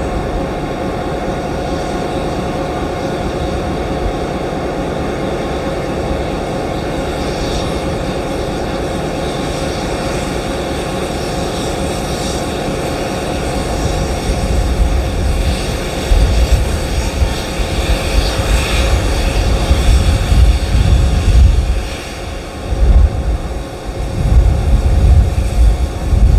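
Steam locomotive working towards the platform with a steady mechanical running noise and steam hissing from its open cylinder drain cocks. From about halfway in, a heavy low rumble comes and goes and grows louder.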